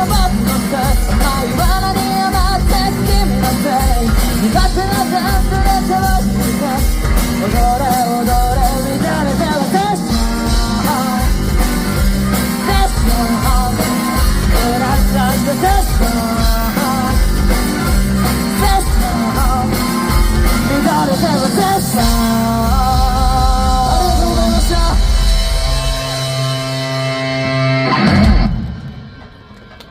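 Live rock band playing with electric guitar, drums and singing, a steady driving beat; the band thins out near the end and finishes on one loud final hit, then drops away.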